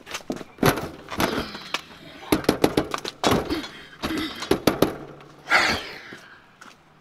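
Fists pounding and banging on a door in irregular bursts of several heavy blows.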